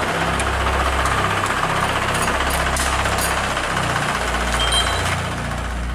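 Tractor engine running steadily while driving a Verti-Drain deep-tine turf aerator.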